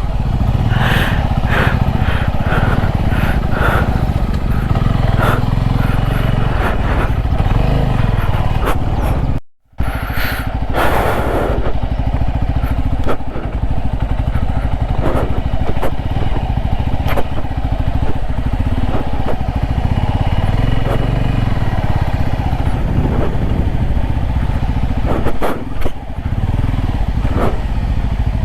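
Motorcycle running steadily on the move, a continuous low rumble with scattered short clatters. The sound cuts out for a moment about ten seconds in.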